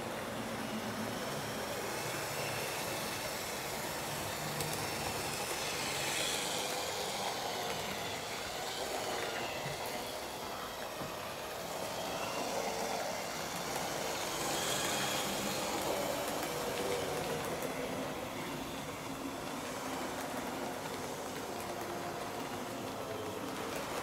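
Model trains running on a model railway layout: a steady whir of the locomotive motors and the rolling of wheels on the track, swelling twice as trains pass closer.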